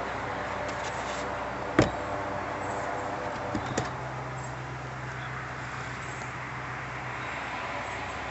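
Steady background noise with a single sharp knock about two seconds in, then two lighter clicks; a low steady hum comes in with the clicks and fades out near the end.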